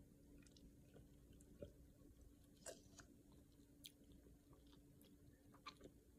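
Near silence: a steady faint hum with a few soft, scattered clicks, mouth and swallowing noises from drinking out of a plastic cup.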